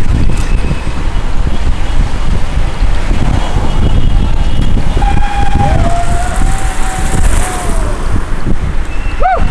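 Heavy wind buffeting the microphone of a camera riding along on a bicycle in a large group of cyclists. Drawn-out calls that slide in pitch come in about halfway through, and a short rising call comes near the end.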